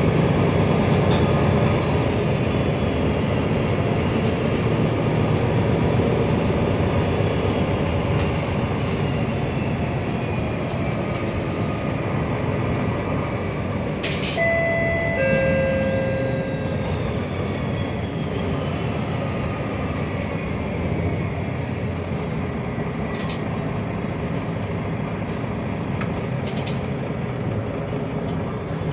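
MAN NL323F single-deck city bus running on the road, heard from inside the cabin: a steady low rumble with a high whine that slowly falls in pitch as the bus slows. About halfway through, a two-note electronic chime sounds once, high then lower.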